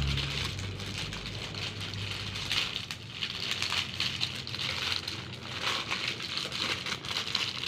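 Thin plastic packaging bags crinkling and rustling as a toy is pulled out of its wrapping by hand, an irregular crackle throughout.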